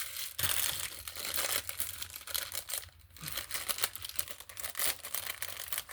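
Packaging crinkling and rustling as it is handled and pulled open, in irregular crackly bursts with a short lull about halfway.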